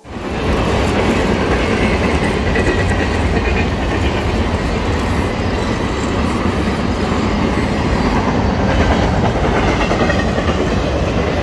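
Freight train rolling past: a loud, steady rumble of wheels on rails that starts abruptly and holds without a break.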